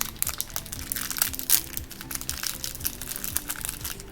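Plastic toy packaging being crinkled and crushed by hand, a quick run of irregular crackles as a blind-pack toy is worked open.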